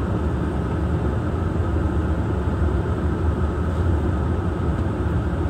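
Steady low vehicle rumble heard from inside a car, with no sudden sounds.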